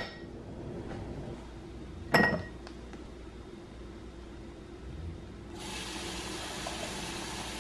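A lemon slice drops into a glass of ice cubes about two seconds in, with a sharp, briefly ringing clink of glass. From about five and a half seconds, kitchen tap water runs with a steady hiss into the glass, filling it.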